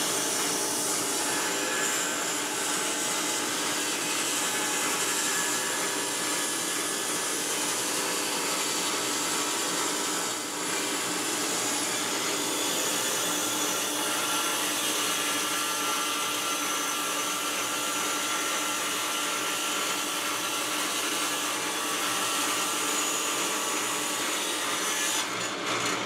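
Table saw running steadily while a wooden board is fed through the blade to cut a series of slots.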